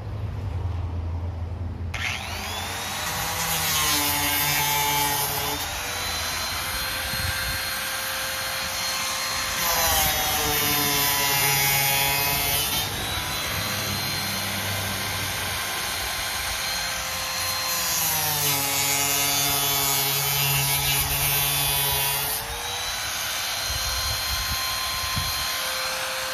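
A power tool's motor starts about two seconds in and runs continuously with a high whine, its pitch dropping and recovering several times as it bites into the cardboard boot box.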